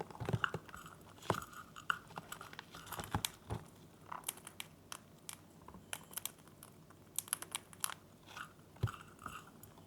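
Small conures cracking and chewing seed treats in their beaks: irregular, sharp little crunches and clicks.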